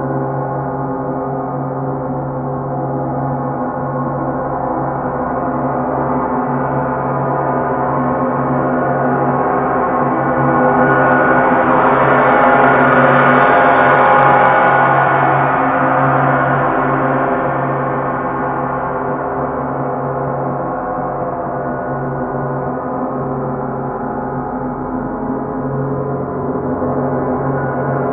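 Several large hanging bronze gongs, among them a 28-inch Planet Jupiter gong, played with soft mallets into one sustained, ringing wash of many overlapping tones. The wash swells to a loud peak about halfway through, its high overtones shimmering, then eases back to a steady hum.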